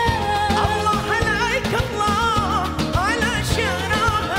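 A woman singing an Arabic song with ornamented, gliding vocal lines and vibrato, over a live band with a steady beat.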